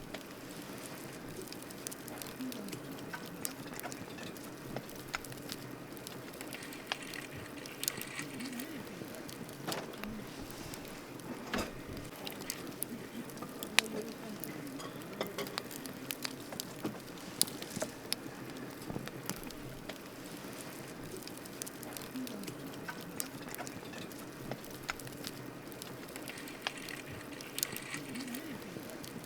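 Wood campfire burning, with a steady hiss under frequent sharp crackles and pops; the loudest pops fall about halfway through.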